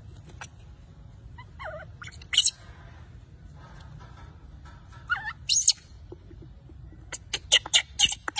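Baby macaque giving short, high-pitched squeaks that bend in pitch, a few times, then a quick run of clicks and squeaks near the end.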